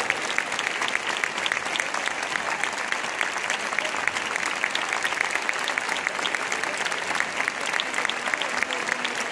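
Sustained applause from a concert audience and the seated band members, many hands clapping steadily without a break, with some sharper claps close by.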